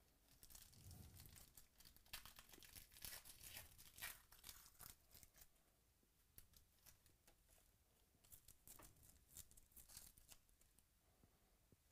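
Faint tearing and crinkling of a foil trading-card pack wrapper as it is ripped open and the cards are pulled out, a dense run of crackles over the first five seconds, then a few more later on.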